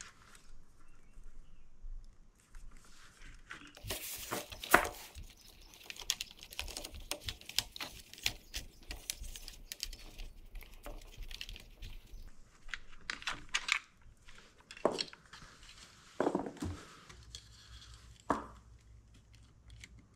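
Cables and a plastic headlight unit being handled and pulled through a scooter's plastic body: rustling and scraping with scattered small clicks and a few sharper knocks, the loudest about five seconds in.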